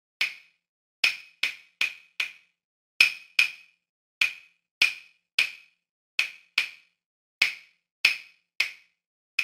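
A small hand percussion instrument struck in a rhythm: about fifteen sharp knocks at one pitch, each with a very short ring, some in quick pairs.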